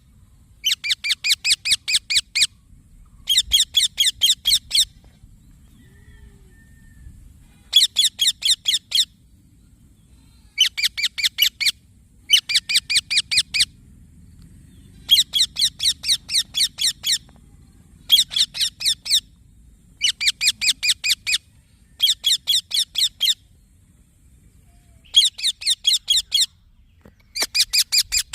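A baby Indian ringneck parakeet chirping in quick runs of high, evenly spaced notes. Each run lasts a second or two and they come again and again, about eleven times, with short pauses between.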